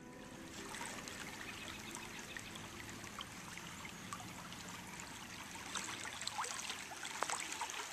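Shallow woodland river flowing over riffles: a soft, steady rush and trickle of running water, with a few faint light ticks in the last couple of seconds.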